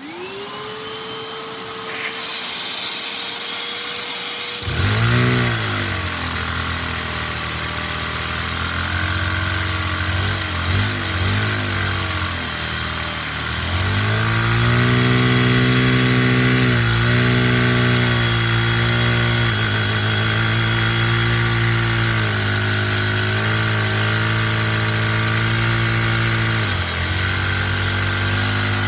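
A vacuum cleaner switches on, its motor whine rising quickly to a steady pitch. About four seconds in, a single-cylinder Lego vacuum engine, running on the vacuum's suction, starts and runs at high speed. It drives a Lego four-speed transmission in first gear, and its speed dips and picks up again several times.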